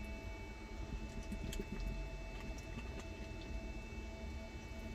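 Quiet swallowing as a person drinks from a plastic bottle of sparkling water, with a few faint small clicks over a low, steady background hum.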